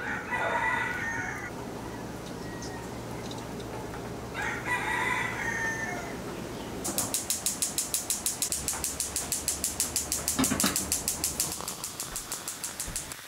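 A rooster crows twice, each crow about a second long and about four seconds apart. Then a fast, even, high-pitched pulsing starts, about six or seven pulses a second, and runs for the last six seconds.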